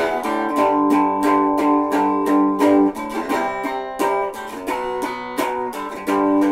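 Guitar being strummed in a quick, steady rhythm of about four strums a second, ringing chords with no voice over it.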